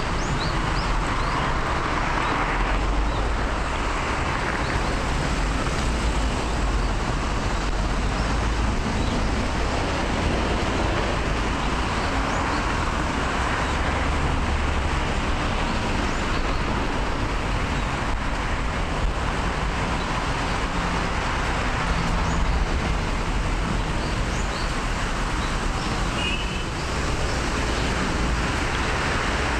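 Road traffic on a multi-lane city street: a steady wash of cars driving past, swelling now and then as a vehicle goes by.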